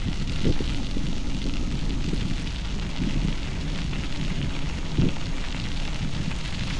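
Bicycle tyres rolling and crunching over a gravel trail, with wind rumbling on the camera microphone. Two louder bumps stand out, one about half a second in and one about five seconds in.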